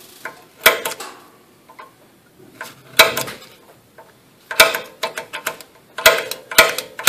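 Spring-loaded automatic center punch snapping against a broken steel bolt, sharp metallic clicks with a short ring. It marks the bolt's centre for drilling out. Two clicks come a few seconds apart, then several more follow in quicker succession over the second half.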